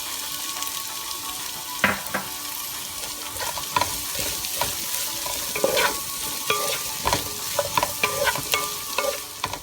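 Chicken and chopped vegetables sizzling in hot oil in a heavy-bottomed kadai while a spatula stirs them, knocking and scraping against the pan. The knocks come more often in the second half.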